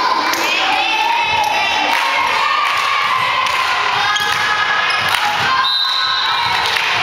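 Volleyball match in a large indoor hall: many voices shouting and cheering throughout, with a few thuds of the ball being struck or bouncing on the court.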